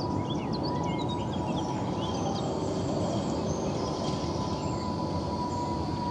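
Tram approaching along its track from a distance: a steady low rumble with a thin steady tone over it. Birds chirp throughout, most busily in the first half.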